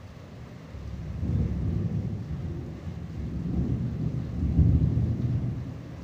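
Thunder rumbling low and rolling during a rain shower, building about a second in and swelling loudest near the end, over a faint hiss of falling rain.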